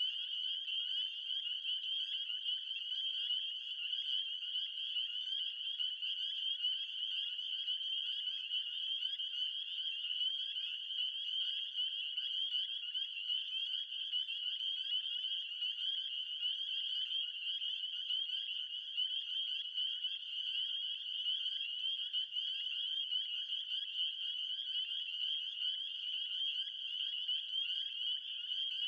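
A dense chorus of many frogs calling at once, a steady high-pitched trilling of overlapping calls with no pauses.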